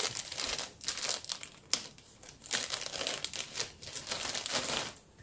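Plastic bag of cotton yarn crinkling and rustling as it is cut open with scissors and a ball is pulled out, a quick irregular run of rustles that stops shortly before the end.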